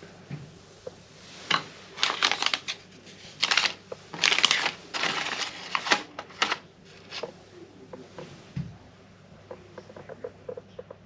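Brown kraft-paper amenity packets rustling and crinkling as they are handled and picked up off a wooden tray. The rustling comes in a string of bursts for about five seconds, then gives way to a few faint light taps.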